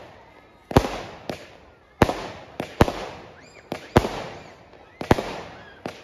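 Fireworks display: aerial shells bursting in a rapid series of sharp bangs, about eight in six seconds, each dying away in echo before the next.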